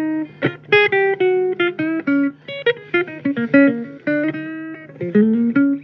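Blues guitar music: a quick run of single picked notes, with a note bent upward near the end, over a steady low hum.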